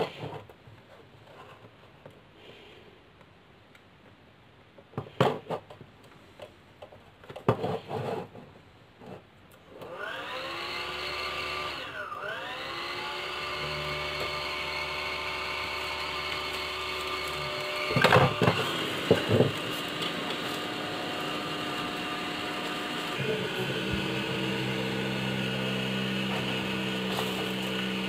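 A 12-volt DC radial blower fan is switched on about ten seconds in. Its whine rises in pitch over a couple of seconds, then it runs steadily with a high whir. Handling clicks and knocks come before it starts and again partway through, and later a lower hum joins the running sound.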